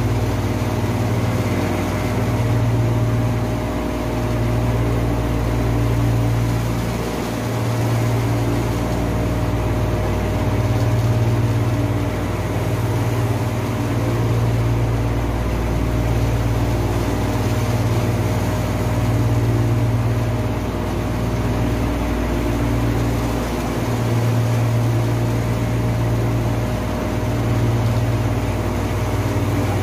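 Steady low drone of heavy running machinery, swelling and easing every three to four seconds, with a faint steady hum above it.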